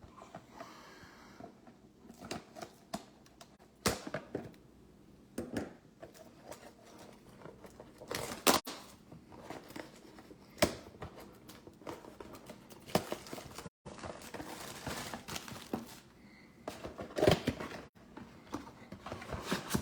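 Crinkling plastic wrap and handled cardboard as a trading card hobby box is unwrapped and its packs are taken out, with scattered sharp crackles and clicks, a few much louder than the rest.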